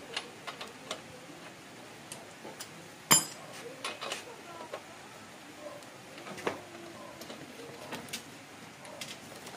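Metal tools clinking and tapping against motorcycle parts: scattered light clicks with one sharp metallic clank about three seconds in.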